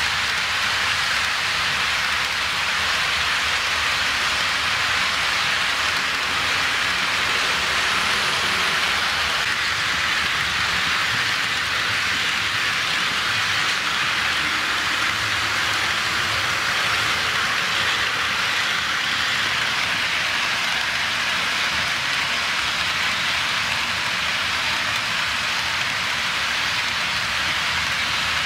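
Long HO-scale model freight train of container well cars rolling on roadbed track: the many wheels on the rails make a steady, even rushing noise, much like rain.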